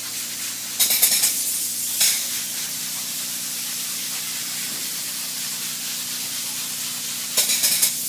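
Spray foam gun hissing as it sprays two-part open-cell polyurethane foam into wall stud cavities, with louder bursts of spray about a second in, at about two seconds, and near the end. A faint low steady hum runs underneath.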